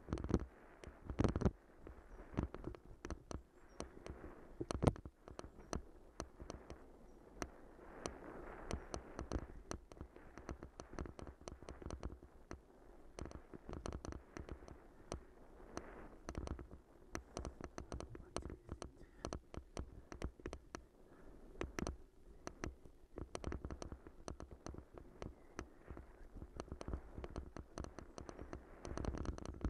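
Bicycle jolting over a rough dirt and leaf-covered trail: a constant irregular clatter of knocks and rattles over a low rumble of tyres on the ground. Two harder knocks come about a second in and about five seconds in.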